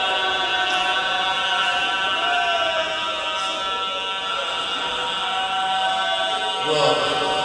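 A man's voice chanting an elegiac recitation through a microphone and loudspeakers, in long held notes that bend slowly, with a brief louder burst near the end.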